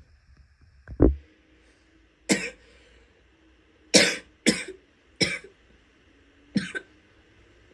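A woman's wet coughs: about six separate coughs, three of them in quick succession near the middle.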